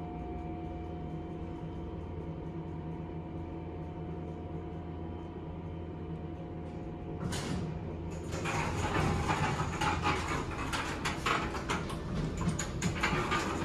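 Elevator car's steady hum with a few held tones, then about seven seconds in a brief hiss followed by several seconds of rattling and clattering from the elevator's sliding doors.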